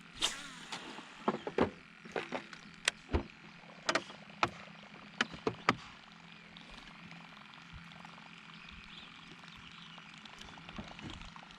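Frogs calling around a pond: a string of sharp, irregular clicking calls over the first six seconds, then a faint, steady chorus.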